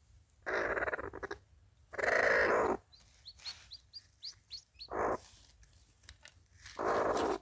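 Birds calling: a quick run of short, high, upward-sweeping chirps about three seconds in, set among four loud, harsh bursts of noise.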